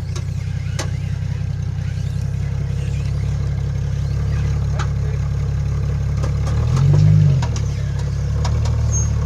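Off-road vehicle's engine running at low revs while crawling over trail rocks, with a brief rev about seven seconds in and scattered sharp clicks and knocks.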